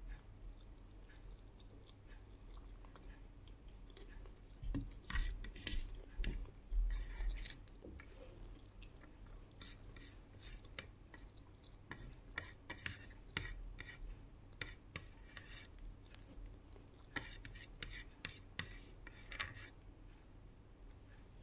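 Fingers scraping and wiping rice off a ceramic plate: a run of short rasping scrapes, heaviest in two spells, about five seconds in and again about seventeen seconds in.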